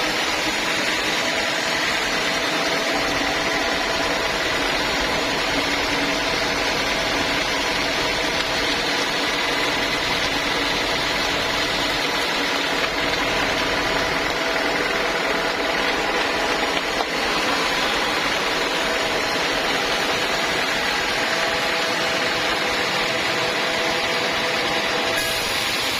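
Sawmill saw running steadily: an even mechanical hum with a constant whine over it, at the same level throughout.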